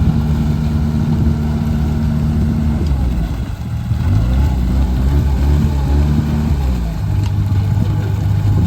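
Engine of road-construction machinery running steadily, then slowing and speeding up again a few times about three seconds in, before settling into a new steady note near the end.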